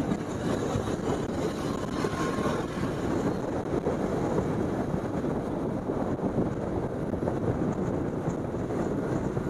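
Motorcycle being ridden along the road: a steady rush of engine and road noise with no clear changes.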